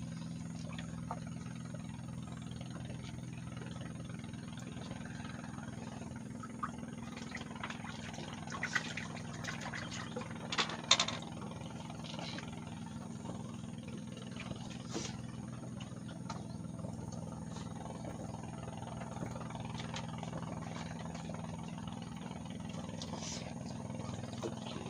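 A small engine running steadily at idle, with a few sharp clicks and knocks over it, the loudest a quick cluster about ten to eleven seconds in.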